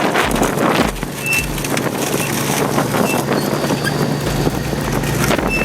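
Heavy shredding machine chewing through large tree roots: its engine runs steadily under load amid continuous cracking and grinding of wood.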